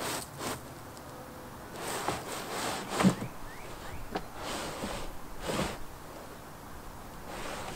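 An Audi A4's trunk carpet liner is pushed down and fitted into the trunk floor. The carpet rustles and scrapes in several bursts, with one sharp thump about three seconds in.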